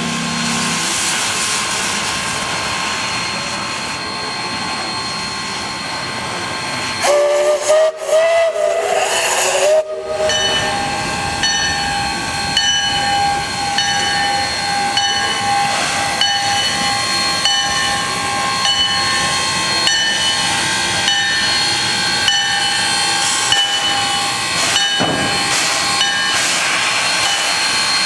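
1913 0-4-0 saddle-tank steam locomotive hissing steam, with its whistle sounding loudly for about three seconds starting about seven seconds in. After the whistle, a steady tone and a ring repeating a little more than once a second carry on under the hiss.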